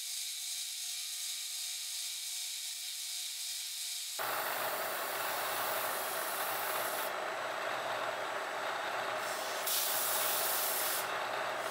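Milling machine spindle running with a small end mill cutting a spiral groove into a metal disc, the scroll of a lathe chuck: a steady high whine over a hiss. About four seconds in the cutting turns louder and rougher.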